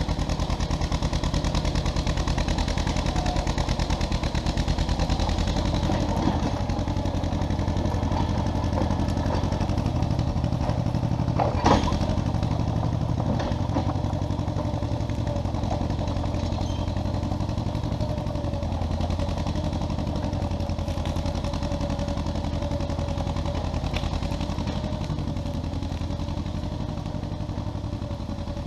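1957 John Deere 420 crawler's two-cylinder gas engine running steadily, with one sharp clank about twelve seconds in.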